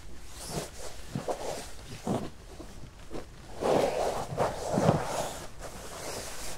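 Rustling and scraping of a towel being rubbed over a wet nylon tent floor, with the swish of a rain suit as the wearer crawls and shifts on his knees. The rubbing comes in irregular strokes and is busiest from about halfway through.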